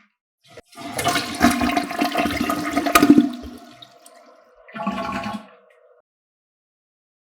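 Toilet flushing: a small click, then a rush of swirling water for about three seconds that fades into a lingering gurgle with a hum-like tone, then a second short gurgle about five seconds in before it stops.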